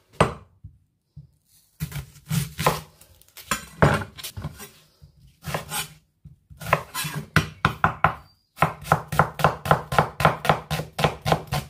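Knife chopping cabbage on a chopping board: a few irregular cuts, then a fast, even run of about four chops a second in the last few seconds.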